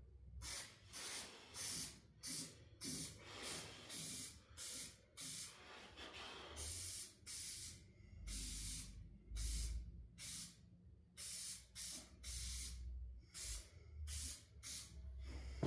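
Aerosol can of yellow spray paint hissing in a rapid series of short bursts, with a few longer sprays in the middle.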